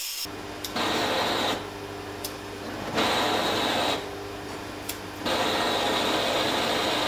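Handheld gas blowtorch hissing in three bursts, the last lasting a few seconds, over a steady low hum, with a few faint clicks in between.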